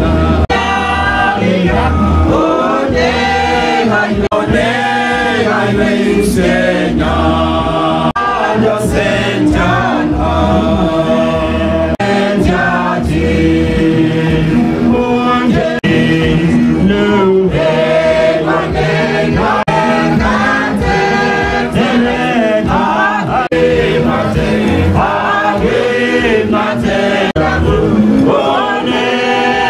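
A congregation singing a gospel hymn together, led by a man singing into a microphone, over an electronic keyboard accompaniment with steady bass notes.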